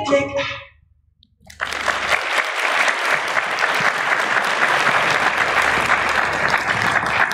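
A sung Christmas song ends, a second of quiet follows, then an audience applauds steadily.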